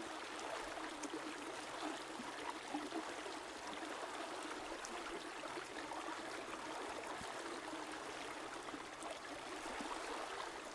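A river flowing steadily: an even rush of running water with small faint splashes.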